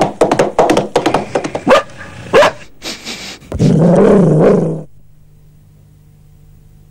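Dog barking loudly in a rapid, irregular string of barks, then one longer, lower bark that cuts off about five seconds in.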